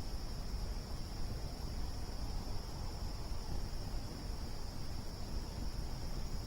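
Crickets trilling steadily, one continuous high tone, over the low, flickering rumble of a campfire burning.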